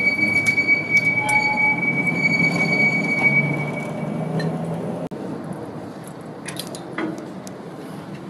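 Heritage double-deck tram running on street track, a low rumble with a steady high-pitched squeal and scattered metallic clicks; the squeal stops about four seconds in. After a sudden break the sound is quieter, with a few clicks.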